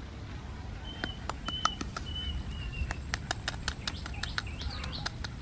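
Small birds chirping: short high whistled notes repeating every half second or so, with a few quick rising-and-falling chirps near the end. A scatter of sharp ticks runs through the middle.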